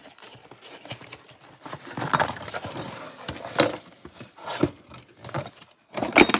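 Cardboard packaging rustling and scraping as a clamp-on bench vise is unpacked, with irregular knocks as its metal parts are set down on a wooden workbench, and a louder clatter near the end.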